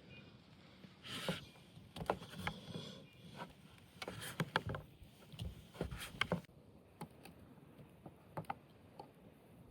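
Quiet campfire-cooking sounds: irregular light clicks and knocks with a few brief rustles.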